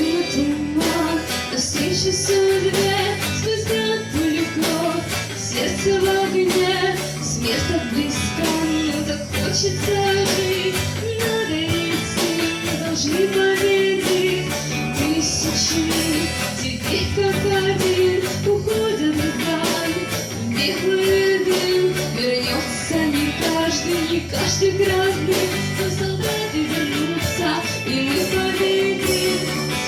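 A rock band playing live, with electric guitar and a wavering sung or lead melody over a full band.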